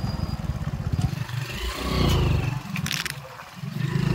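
Small motorcycle engine running as the bike is ridden along a dirt trail, swelling louder with the throttle about two seconds in and again near the end, with a brief clatter just before the three-second mark.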